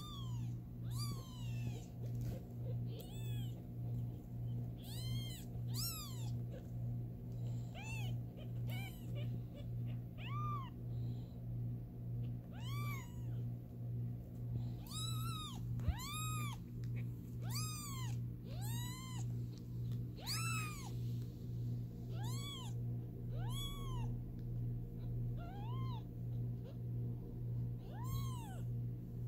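Newborn kittens mewing: about twenty short, high-pitched mews, each rising then falling in pitch, scattered irregularly. A steady low hum pulses evenly underneath.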